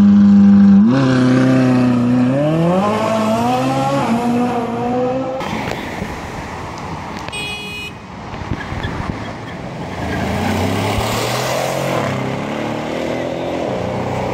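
A loud logo intro sound: a held tone that climbs in pitch in steps, then cuts off about five seconds in. Road traffic follows, with a car engine running past near the end.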